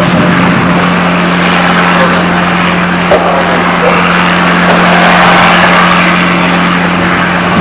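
Steady, loud engine noise with a constant low hum underneath, running without a break.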